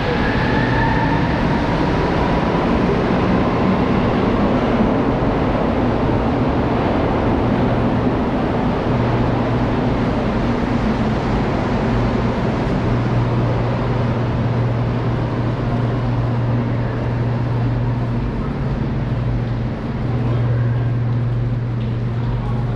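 Montreal Metro train's motor whine rising in pitch as it accelerates away from the platform in the first few seconds, over a steady low rumble and hum in the underground station.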